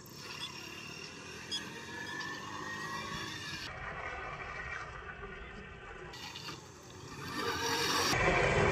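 Auto-rickshaw's small engine running and revving as the three-wheeler turns, its pitch rising and falling. It gets much louder near the end as the vehicle comes close.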